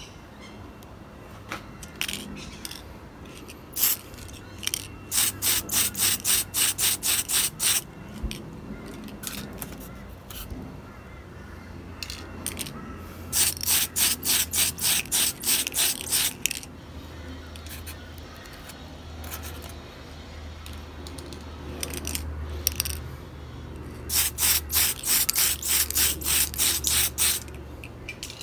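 Tamiya aerosol spray-paint can spraying in quick short bursts, three runs of about a dozen hisses each with a few single bursts before them, putting a coat of paint on a plastic model truck cab.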